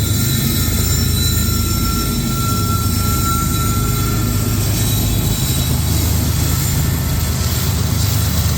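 Freight train led by a diesel locomotive running past, a steady heavy low rumble, with a thin high-pitched squeal that fades out over the first few seconds.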